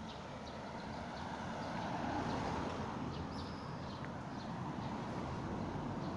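A car driving past on the street close by, its engine and tyre noise swelling about two seconds in and then easing, over steady traffic noise. A few short high chirps sound above it.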